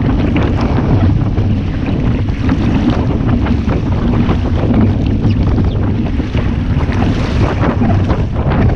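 Heavy wind buffeting the microphone over water rushing and splashing against a small sailing dinghy's hull.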